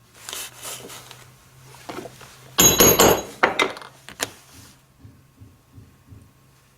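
Mallet striking a metal stitching punch to drive it through leather: a quick cluster of hard hits with a metallic ring about two and a half seconds in, then one more sharp hit about a second later. A soft rustle of handling near the start and a few light knocks near the end.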